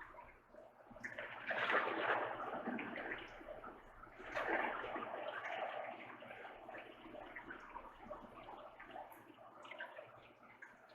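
A person drinking water, the liquid sloshing and gulping, loudest twice, about one and a half and four and a half seconds in.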